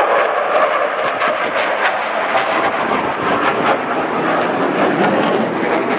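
Loud jet engine roar from US Navy Blue Angels F/A-18 Super Hornets flying overhead, a steady rush with crackling running through it.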